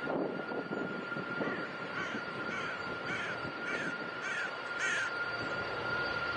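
Boeing 787-8 Dreamliner's engines at take-off power as it lifts off and climbs away: a steady rush of noise with a constant whine. Partway through, a bird calls about seven times in quick succession, roughly two calls a second.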